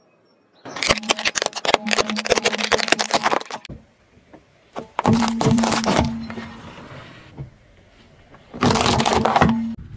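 A car tyre rolling over and crushing objects in turn: plastic correction-tape dispensers cracking and crackling for about three seconds, then parsnips cracking, then carrots snapping near the end. A steady low hum runs under each crush.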